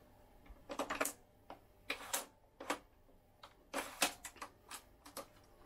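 Telescopic trolley handle of an Inmotion V8 electric unicycle being pulled up and extended, giving a series of irregular clicks and knocks with a quick cluster about four seconds in.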